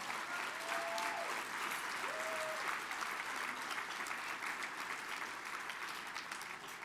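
Audience applauding. A few voices call out over the clapping in the first couple of seconds, and the applause thins out near the end.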